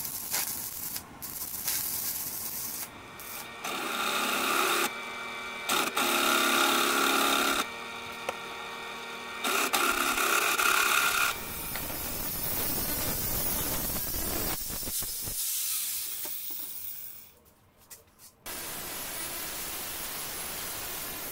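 Electric arc welding crackling for the first few seconds. Then a bench drill press motor runs with a steady whine while it drills, stopping and starting. Near the end, an angle grinder cuts through a steel rectangular tube with a steady hiss.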